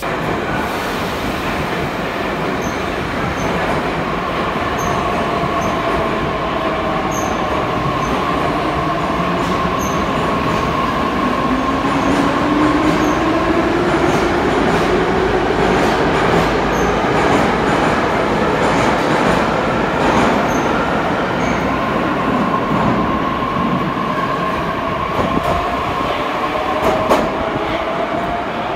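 81-722 'Yubileyny' metro train moving through the station: wheels rumbling on the rails under an electric whine from its traction drive. The whine glides down early on, climbs steadily through the middle and climbs again near the end.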